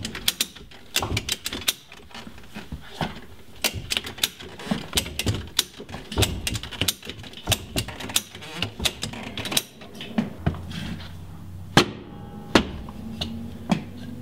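Irregular run of sharp metal clicks and knocks from a Jeep Cherokee's axle and leaf spring being shifted with a strap to line the spring's pin up with the spring perch. Two loud knocks a little before the end, as the axle is kicked and the pin drops into the perch hole.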